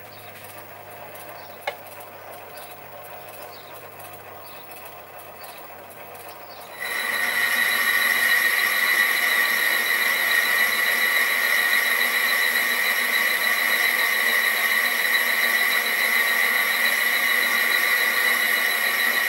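Sieg SC3 mini lathe running while a boring tool takes a light finishing cut inside an aluminium cylinder held in a four-jaw chuck. There is a sharp click about two seconds in. About seven seconds in, a much louder, steady, high-pitched whine of several tones starts and holds.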